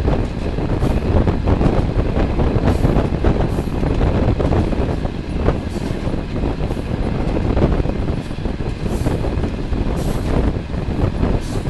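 Passenger train running at speed, heard from an open carriage window: a steady rumble of wheels on rails with wind rushing at the microphone and scattered faint clicks.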